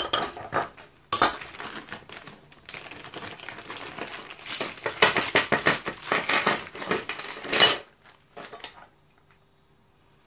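Metal medals clinking together and small plastic zip-lock bags crinkling as they are handled, a quick run of clicks and rustles that is busiest just past the middle and stops near the end.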